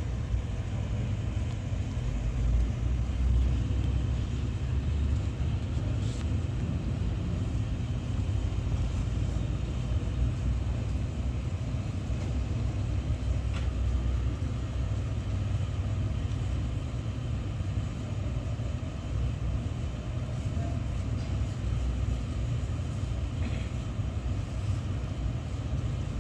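Steady low rumble with a faint hiss over it, broken by a few faint ticks.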